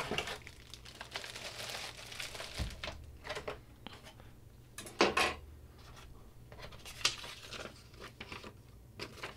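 Plastic wrap crinkling as a wrapped keyboard is handled, then a paper instruction sheet rustling as it is picked up out of a cardboard box, with sharper rustles about five and seven seconds in.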